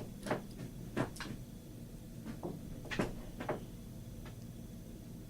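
Small sharp clicks and taps of lock pins and the metal lock body being handled while pins are loaded into a pin-tumbler lock, about six in the first three and a half seconds, then quiet handling.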